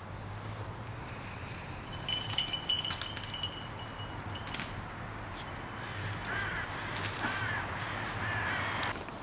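Crows cawing several times in the background in the second half. Near the start, a loud, high, rattling jingle lasts about two and a half seconds.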